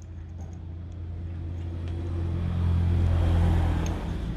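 Engine noise that grows steadily louder for about three seconds, then drops off near the end, like a motor vehicle passing by.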